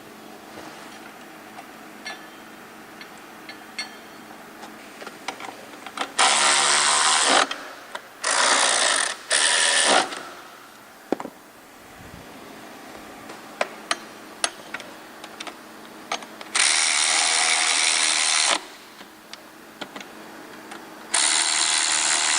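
A handheld power tool driving bolts, run in five short bursts of one to two seconds, with light clicks and taps of metal parts and hand tools between the bursts.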